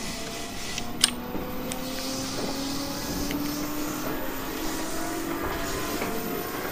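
JR East 719 series electric train running: its traction motors give the whine known as the 'jet sound', several pitches rising slowly as the train gathers speed, with a sharp click about a second in.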